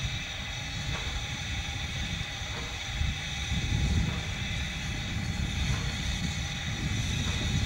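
PKP class Ol49 steam locomotive rolling slowly, heard as a steady low rumble that swells a little midway.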